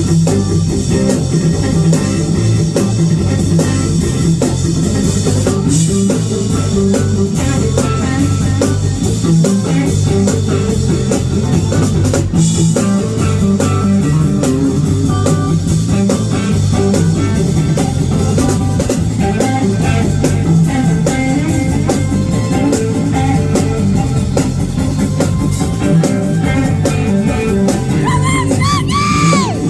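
Live band playing an instrumental groove: electric guitar over drum kit and a heavy low bass line. Near the end a high note bends up and down.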